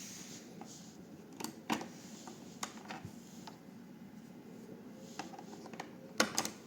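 A scattering of sharp clicks and light knocks, with the loudest cluster near the end, as a Xiaomi Smart Humidifier 2 is handled. Beneath them is a faint steady background hum.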